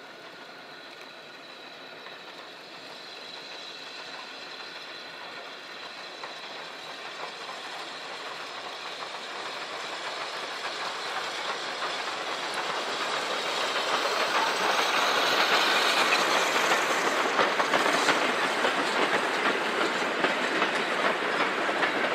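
SECR C Class 0-6-0 steam locomotive hauling a train of vintage goods wagons, approaching and passing close by. It grows steadily louder and is loudest about two-thirds of the way in as the engine and wagons go past, with the wheels clattering over the rail joints and the wagons rattling.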